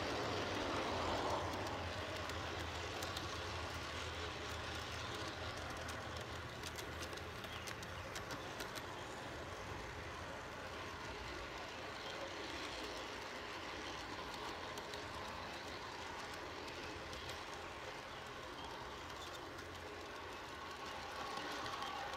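G scale model train running along the track, heard from a camera riding on the caboose: a steady rolling rumble of the wheels on the rails, with scattered clicks.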